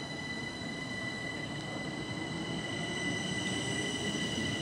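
Southeastern electric multiple unit moving through the station, its wheels rumbling on the rails over a steady high whine. A lower motor tone rises slowly in pitch as it picks up speed.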